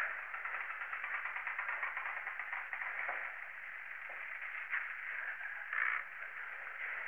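Steady hiss, with two short louder bursts about five and six seconds in.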